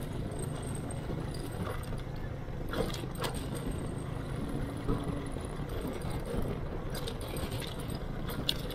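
Motorcycle engine running steadily while riding, with a low wind rumble, as heard from a microphone inside the rider's helmet. A few brief rattles and clicks, about three seconds in and again near the end.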